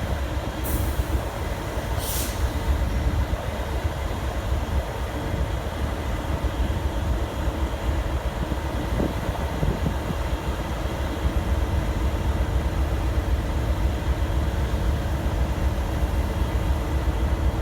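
V/Line N class diesel-electric locomotive, with its EMD 645 V12 engine, running with a steady low rumble. Two short bursts of air hiss come about one and two seconds in.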